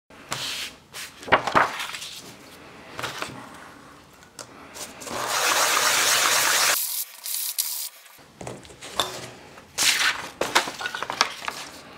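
A sheet of sandpaper handled and rubbed on a cutting mat: irregular rustles, scrapes and light knocks, with a longer, louder stretch of steady rubbing about five seconds in.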